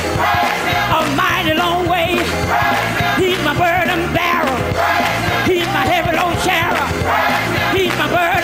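Live gospel music: a woman sings lead into a microphone, backed by a choir and a band with a steady bass and beat.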